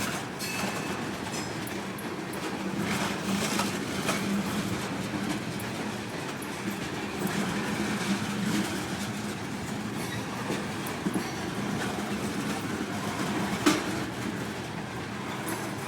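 Kansas City Southern manifest freight train's cars rolling past: a steady rumble of steel wheels on rail with scattered clacks, and a sharper knock near the end.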